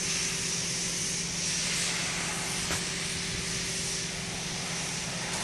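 Steady machine drone: a constant low hum under a strong even hiss, with one small click about halfway through.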